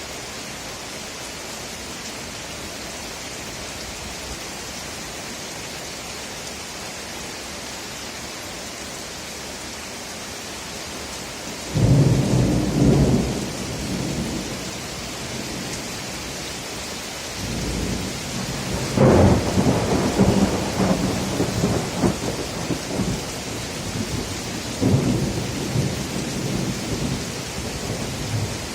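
Steady heavy rain hissing down, with thunder: a sudden loud clap about twelve seconds in, then a long rolling rumble a few seconds later and a weaker rumble near the end.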